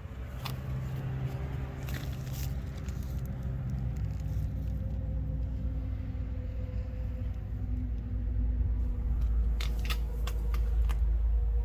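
Low rumble of a motor vehicle engine with a steady hum, growing louder toward the end, with a few scattered knocks.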